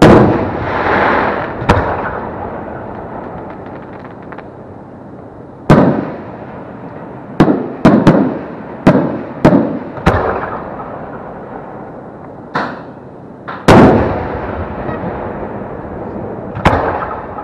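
6-inch aerial firework shells bursting overhead: about a dozen sharp booms at uneven intervals, several in quick succession in the middle, each trailing off in a fading rumble. The loudest come at the very start and about two-thirds of the way through.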